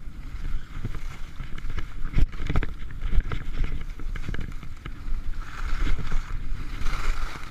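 Skis sliding and scraping over packed snow at speed, with a steady low rumble of wind and body movement on a chest-mounted camera and frequent small knocks as the skis run over bumps.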